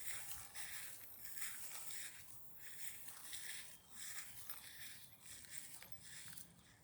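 Faint, irregular rustling and crunching, a short noisy scrape every half second to a second.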